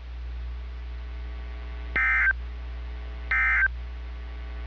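NOAA Weather Radio SAME end-of-message tones: two short, buzzy digital data bursts about a second and a third apart, with a third starting at the very end, signalling the close of an alert message. A steady low hum runs underneath.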